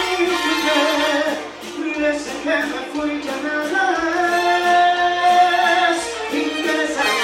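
Live dance-band music: a singer holding long notes over the band, with a steady, regular bass pulse.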